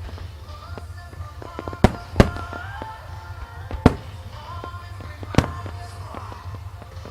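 Aerial firework shells bursting: four sharp booms, two in quick succession about two seconds in and two more over the next few seconds, among lighter pops and crackles, with music playing throughout.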